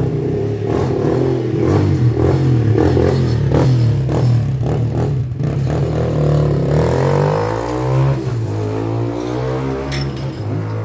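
A motor runs loudly and steadily with a hum, and clattering knocks come through in the first half. The pitch wavers up and down from about seven seconds in.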